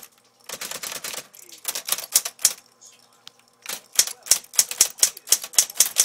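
Vintage typewriter being typed on: runs of sharp key strikes, a pause of about a second near the middle, then a faster run of strikes.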